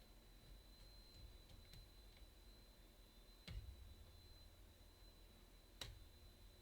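A few faint, scattered clicks of a hook pick working inside a 6-pin Yale KM1 lock, the clearest about halfway through and another near the end.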